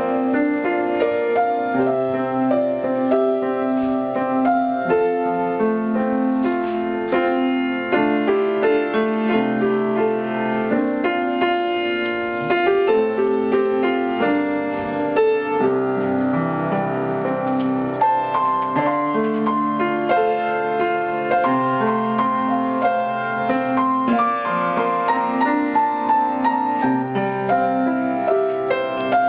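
Solo piano playing an improvised melody over held chords, one note after another with no pauses.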